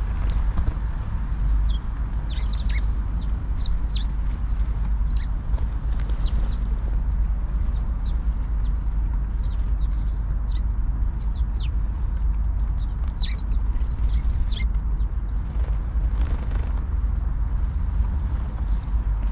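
A flock of house sparrows chirping: many short, sharp chirps overlapping, thinning out near the end, over a steady low rumble.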